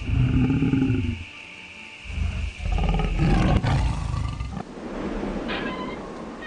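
Lion roaring twice: a short roar, then a longer one from about two seconds in that fades away.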